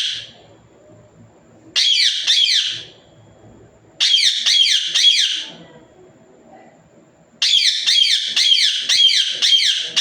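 Pet parrot screeching in bouts of rapid, shrill notes, each note sliding up and down in pitch. There are three bouts, with the last and longest starting about three-quarters of the way in.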